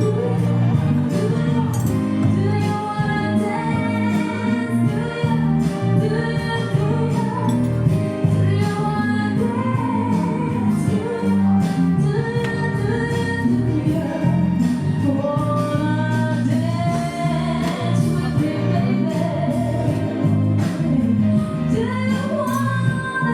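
Song with a woman singing over an upbeat band with a steady beat and tambourine.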